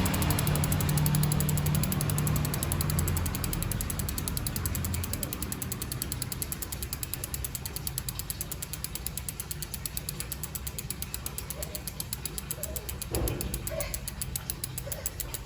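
Odessy freehub pawls clicking rapidly in a fast ratchet as the wheel coasts, the ticking slowing and fading as the wheel spins down. A short knock about thirteen seconds in.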